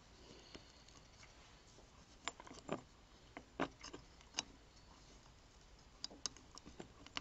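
Small metal parts of an old single-action revolver being worked loose by hand: faint, scattered metallic clicks and light taps. The sharper ones come a little over two seconds in, around four seconds, and again around six seconds.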